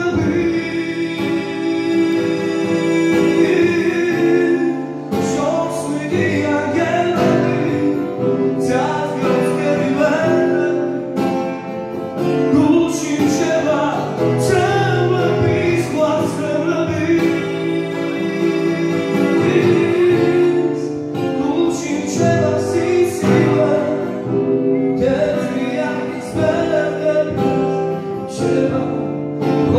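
A man singing a song into a handheld microphone, amplified through a PA, over sustained chordal accompaniment.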